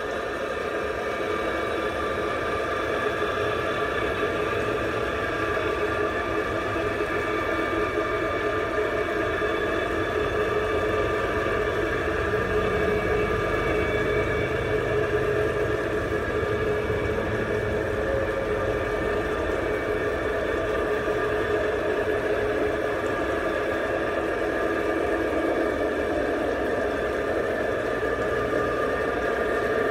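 Large-scale model BNSF diesel locomotive running steadily with a freight train, giving a continuous engine-like drone with a low rumble that swells a little in the middle.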